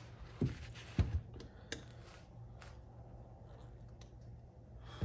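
Hand tools being rummaged through and handled: a few sharp clicks and knocks in the first two seconds, then fainter scattered ticks, over a steady low hum.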